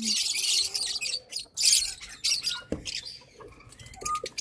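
Lovebirds in an open nest box: a harsh hiss lasting about a second, then scratching and rustling in the nest material with short, thin chirps.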